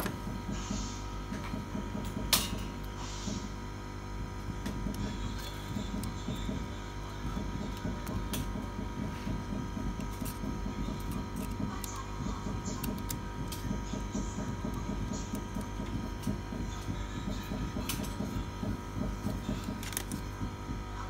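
Steady electrical hum with a faint steady high tone, broken by scattered light clicks and taps from hands handling the opened tablet's parts, one sharp click louder than the rest a couple of seconds in.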